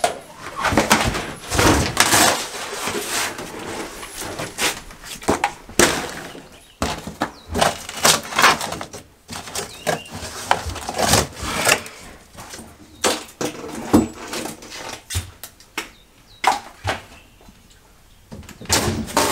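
Wallpapered drywall being pried and torn off wooden wall studs by hand and with a hammer: a run of irregular cracks, snaps and crumbling, with knocks.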